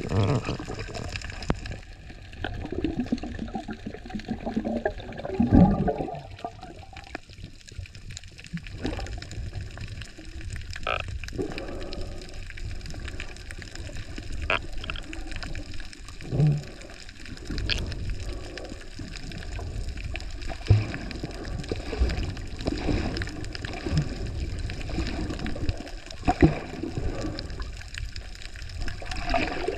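Water moving around a submerged camera: a low, muffled rushing with gurgles and scattered sharp clicks and knocks.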